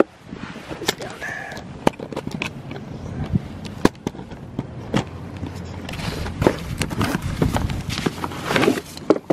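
Cardboard product box being opened and handled by hand: irregular taps, knocks and scraping of the flaps and packaging, busier in the last few seconds.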